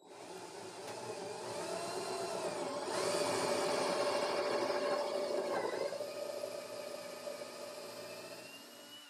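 Cordless drill with a brad point bit boring out a wooden dowel pin in a chair joint. The motor whines steadily for about nine seconds, its pitch wavering as the bit cuts, and is loudest in the middle before stopping.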